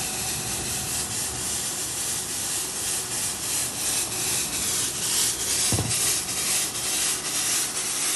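AE-A900 900 W electric fog sprayer running, its blower giving a steady rushing hiss as it puts out disinfectant mist. A short low thump a little before six seconds in.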